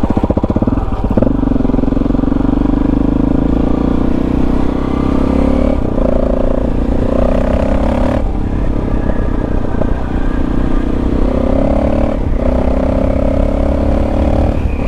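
KTM 640 Adventure R's single-cylinder engine pulling steadily under way, its note climbing slowly, with several brief breaks and shifts in pitch.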